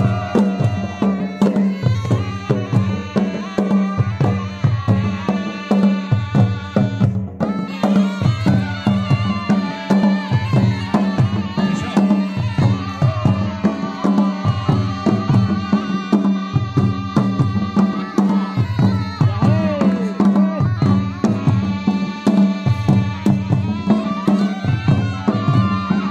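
Himalayan folk dance music: a melody instrument plays over a steady, even drum beat, with a very short break about seven seconds in.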